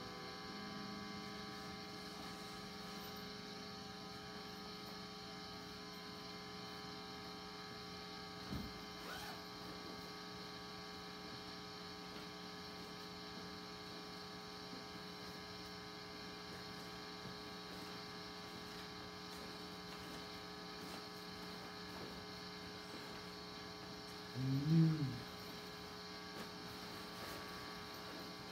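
Steady electrical mains hum with many overtones, running throughout. A faint knock comes about a third of the way in, and near the end a brief low wavering tone, the loudest moment.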